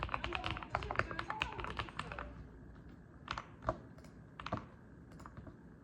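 Typing on a mechanical keyboard: a fast run of keystrokes for about two seconds, then a few separate key presses.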